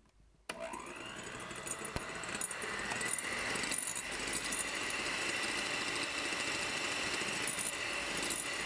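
Electric hand mixer switching on about half a second in, its motor whine rising as it spins up, then running steadily as the twin wire beaters whip egg whites and sugar into meringue.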